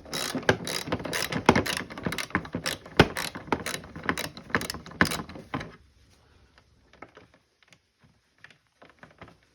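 Socket ratchet wrench clicking rapidly as it backs out the side-panel bolts, stopping about six seconds in, with a few faint ticks after.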